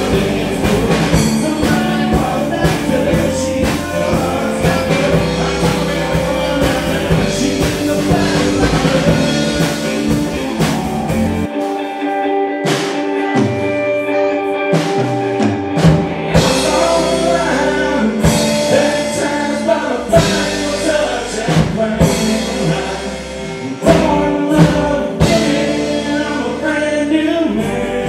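Live country-rock band playing loud through a PA, with electric guitars, bass, drums and a lead singer. Near the middle, the bass and drums drop out for a few seconds, then come back in.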